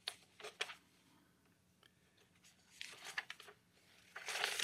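Sheets of paper rustling as they are handled and turned, in a few short bursts, the longest about three seconds in and near the end.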